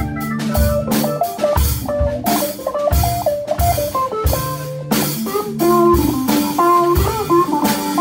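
A small band playing an instrumental rock piece live: electric guitar playing a lead melody with some bent notes over held digital-piano chords, with a drum kit keeping a steady beat.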